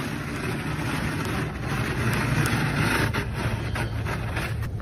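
Kitchen spatula scraping frost off a car window in repeated strokes, over a steady low rumble.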